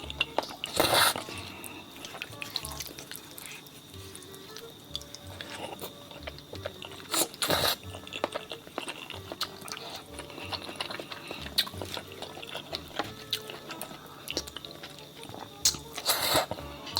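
Close-miked eating: wet chewing and slurping with many small clicks, over background music. Three louder bursts come about a second in, midway through, and near the end.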